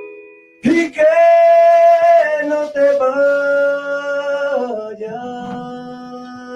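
A man singing slow, long held notes into a microphone, the pitch stepping down a few times.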